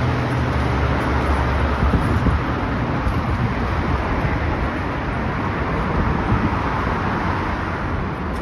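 Road traffic on a busy city street: a steady rush of passing cars, with a low engine hum for about the first second and a half.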